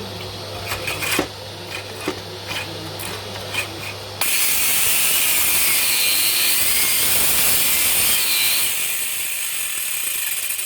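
A stone-cutting saw with a diamond disc starts cutting dry into stone about four seconds in and runs steadily with a high whine. Before it, there is scraping and knocking over a low steady hum.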